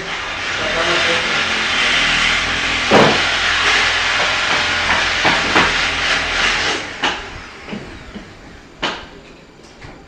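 A power tool running with a loud hissing noise, cutting off about seven seconds in, followed by a couple of sharp knocks.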